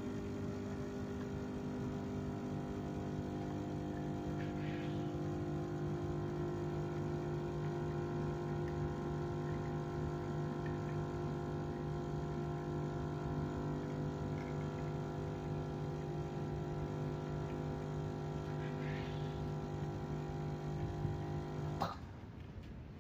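Ferratti Ferro FCM3603 espresso machine's pump running steadily with a pitched hum while pulling an espresso shot. It cuts off sharply with a click near the end as the shot finishes.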